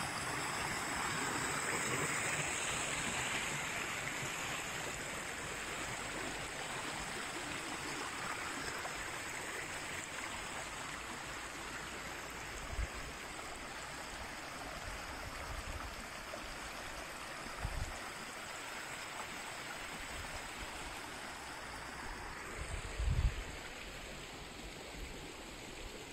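Shallow mountain brook, the Șipoaia, rushing and splashing over stones in a steady flow that eases a little as the camera moves along the bank. A few short low thumps come in the second half.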